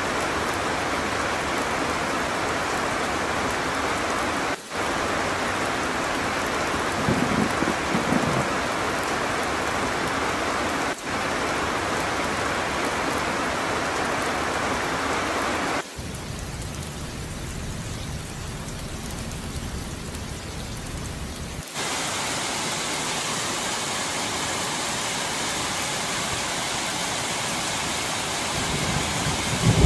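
Heavy rain pouring down in a steady, dense hiss. It drops out for an instant several times and goes quieter for a few seconds in the middle. A low rumble builds near the end.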